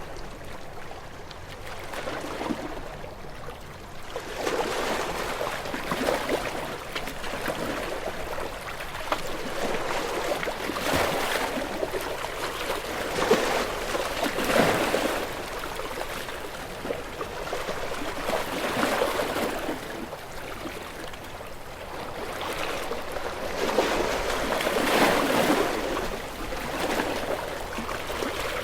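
Sea waves washing against shore rocks: a rush of water that swells and fades every few seconds, with the biggest surges about halfway through and near the end.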